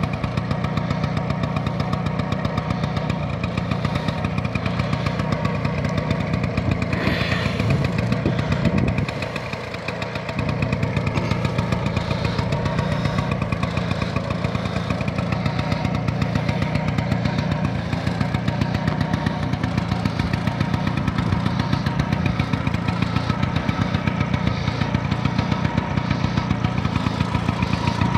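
The freshly rebuilt two-stroke single-cylinder engine of a 1956 Vespa Faro Basso scooter idles with a steady pulsing beat on its first run after 22 years unused. About nine seconds in the revs sag briefly, then pick up again.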